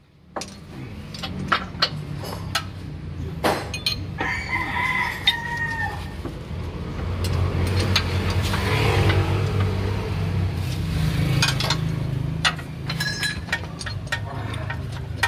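A rooster crowing about four seconds in, over a steady low hum that swells in the middle. Scattered metal clinks of hand tools come from wrench work on a car's steering rack end.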